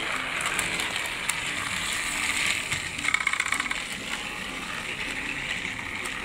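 Battery-powered Fisher-Price TrackMaster Hurricane toy engine running on plastic track: a steady motor and gear whir with the wheels rattling over the rails. A quick burst of rapid clicks comes about three seconds in.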